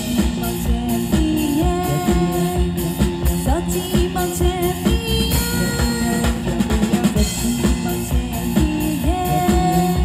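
Music with a drumbeat and a sung melody line.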